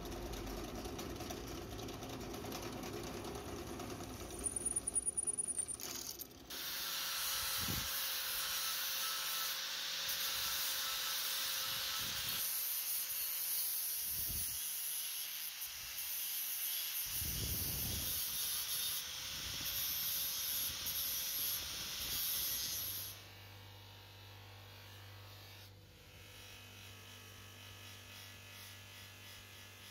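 A drill press runs while drilling a brass guard, with a brief rattle. Then, about six seconds in, an angle grinder with a flap disc grinds metal in a loud, steady hiss for about sixteen seconds. Near the end a bench buffer's motor hums steadily and more quietly as a part is polished on its wheel.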